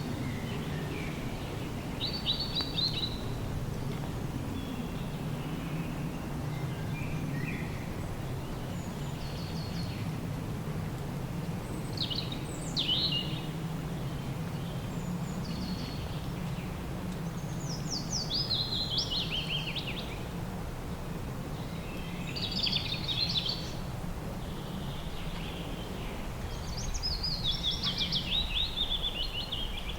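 Birds calling, with short high chirps and falling trills every few seconds, over a steady low background rumble.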